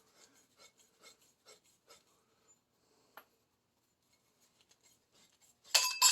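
Pipe cutter turning around a 3/4-inch copper pipe, its wheel scraping faintly in strokes about twice a second, then a louder metallic clink and ring near the end as the pipe parts.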